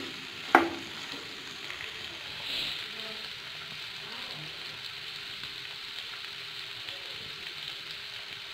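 Mutton liver pieces sizzling steadily in oil in a nonstick frying pan, with one sharp knock of the spatula against the pan about half a second in.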